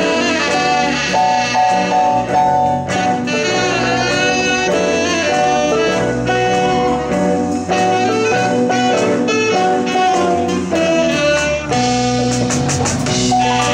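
Live blues band playing an instrumental passage: saxophone over electric guitar, electric bass and drum kit.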